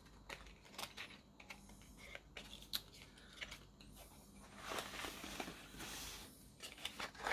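Faint handling of small cardboard ink boxes: light taps and clicks as the boxes are picked up and knocked together, with a longer papery rustle and scrape about five seconds in as the box is opened and the ink bottle drawn out.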